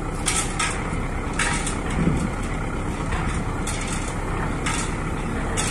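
Diesel engine of a cantrang fishing boat running steadily with a low rumble while the boat is brought alongside to moor; short hissing bursts recur every second or so over it.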